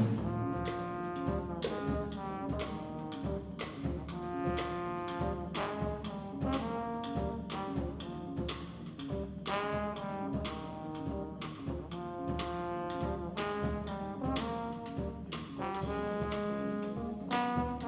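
Small jazz band playing live: a trombone carries the melody in held notes and phrases, over a drum kit keeping a steady beat with double bass and piano.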